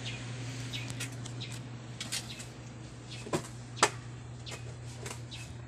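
Two sharp clicks about half a second apart, the second louder, over a steady low hum and a few faint ticks.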